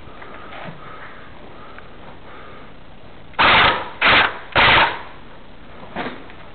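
Airsoft gun fired in three short full-auto bursts in quick succession, each about half a second long and very loud at the microphone.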